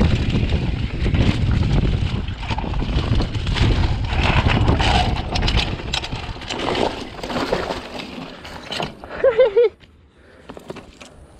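Downhill mountain bike descending a rocky dirt trail: wind rumbling on the helmet-camera microphone, tyres crunching over loose stones and the bike rattling over rocks. About nine seconds in there is a short wavering tone, then the riding noise stops abruptly as the bike halts with its chain come off.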